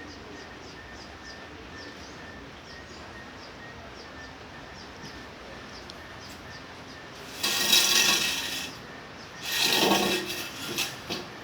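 Steady hiss of light rain with faint high chirps. About seven and a half seconds in it is broken by two loud scraping, rubbing noises, each about a second long, with a couple of shorter scrapes after them.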